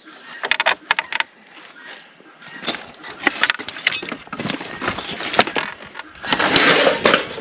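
Irregular knocks, clinks and rattles of wood and metal hardware being handled, with louder scraping, rustling stretches about two-thirds of the way through and near the end.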